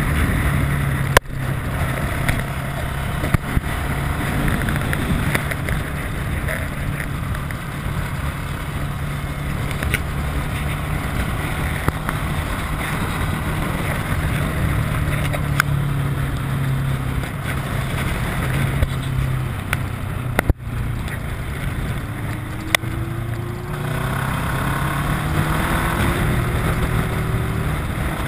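Kawasaki ER-6n's parallel-twin engine running steadily at road speed, with a couple of brief sharp clicks; over the last few seconds the revs rise as the bike accelerates.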